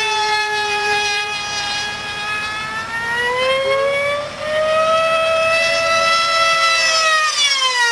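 Screaming high-revving glow two-stroke engine (an Ibragimov IR 40, 6.5 cc) of an F3D pylon racing model aircraft in flight. Its whine sinks in pitch, rises again about three seconds in, holds, and falls once more near the end as the model passes and turns.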